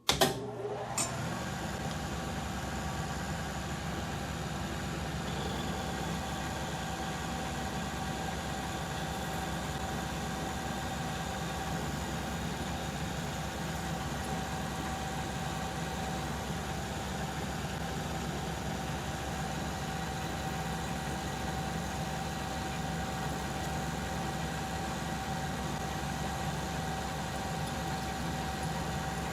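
Metal lathe starting abruptly with a couple of knocks, then running steadily under power with a constant whine while taking a turning cut on a small steel pin.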